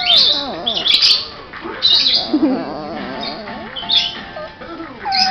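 Five-week-old puppies yipping and squealing as they play: a run of short, high-pitched yelps and squeaky whines that bend up and down in pitch, with faint TV sound underneath.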